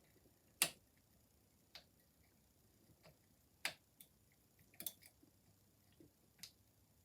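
Lever-lock picking tools ticking and clicking in a Chubb Cruiser lever padlock as it is picked: about half a dozen small, sharp, irregular clicks, the loudest just over half a second in.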